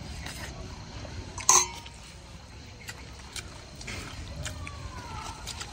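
Close-up eating sounds of a hand-eaten rice meal: chewing, wet mouth smacks and small clicks of fingers and plates, with one short loud sharp sound about a second and a half in.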